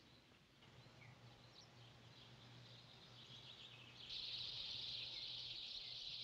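Faint chirping of small birds, scattered short high chirps that swell into a dense, louder chorus about four seconds in, over a low steady hum.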